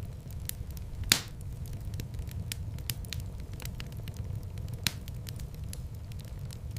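Wood fire crackling in a fireplace: a steady low rumble of flames under constant small crackles, with two loud pops, one about a second in and one near five seconds.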